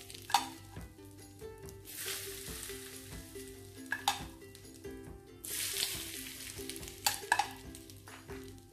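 Spoonfuls of warm mustard oil sizzling as they are poured over chopped red chillies and ground spices. Each sizzle swells up, about two seconds in and again about five and a half seconds in, then fades. A steel spoon clinks against the pan a few times, over faint background music.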